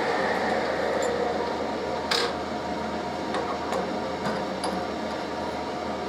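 Steady workshop noise that eases off over the first few seconds, with one sharp metallic click about two seconds in and a few lighter clicks after it, as the drill bit is taken out of the milling machine's chuck.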